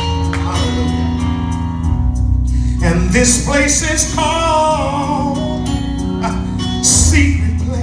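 Live gospel music: a band with a steady bass line, and a group of singers.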